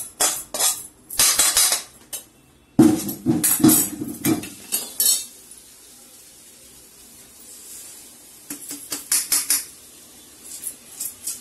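A steel spoon scraping and tapping against a steel kadai in quick clicks as fried flattened rice is emptied into a bowl, then a loud clatter of steel cookware being moved about three seconds in. Near the end, a few more metal taps as a steel colander is emptied into the bowl.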